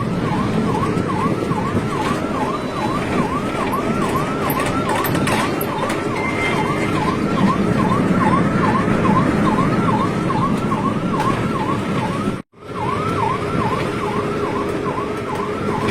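Ambulance siren wailing in a fast up-and-down yelp, about three sweeps a second, over a steady low rumble; it breaks off for a moment about twelve seconds in, then carries on.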